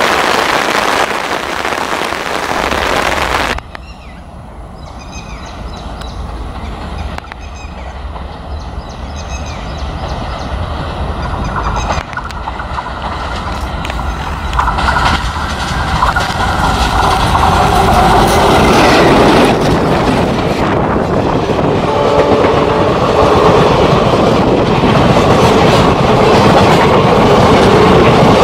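Heavy rain hiss for the first few seconds, ending abruptly. Then a WDM-class ALCO diesel locomotive approaches with a low engine rumble that grows steadily louder, and its passenger coaches pass with wheels clattering over the rail joints.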